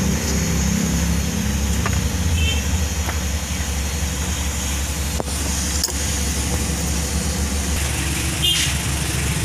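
Steady low engine-like hum in the background, with a few light sharp clicks as a flat screwdriver pries plastic clip locks off a timing belt cover.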